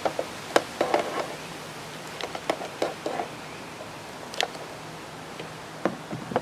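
Tin snips chopping out plastic screw posts inside an enclosure lid: a series of sharp, irregularly spaced snaps and clicks. Near the end there is a knock as the snips are set down on the wooden table.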